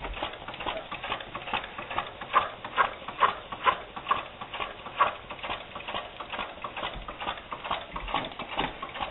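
Weed eater two-stroke engine converted to run on steam, running with a bicycle-wheel flywheel: a quick, uneven patter of clicks.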